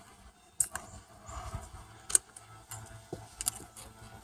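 Steel pick tool scraping and clicking against the rusty bore of a dual-piston brake caliper while prying the rubber piston seal out of its groove. There are a few sharp clicks, the loudest about two seconds in.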